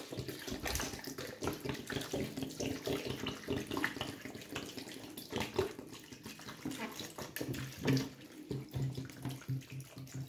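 Sauerkraut brine pouring from a plastic bottle into a large pot over slabs of bacon, splashing unevenly onto the meat and into the rising liquid.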